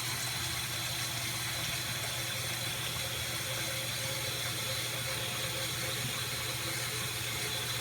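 Bathroom tap running steadily into a sink, an even rush of water with a low hum beneath it.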